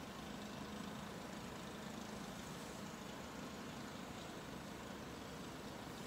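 Steady outdoor background noise: a low rumble with an even hiss and no distinct events.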